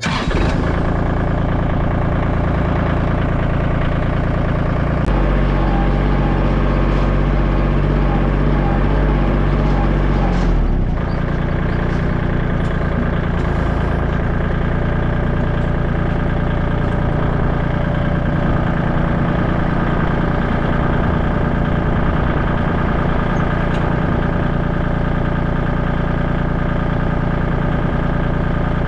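Kubota L2501 compact tractor's three-cylinder diesel engine running steadily, heard up close. Its note shifts for several seconds from about five seconds in, then settles back.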